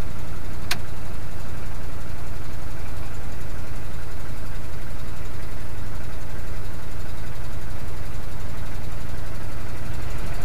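1982 GMC C30 pickup's engine running at high idle after a cold start, loud inside the cab because of a leaking exhaust. A single sharp click less than a second in.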